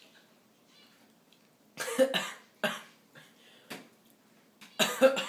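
A young man coughing in short, sharp bouts: three coughs about two seconds in, a smaller one after, and another burst near the end, coughing on a chili-spiced snack.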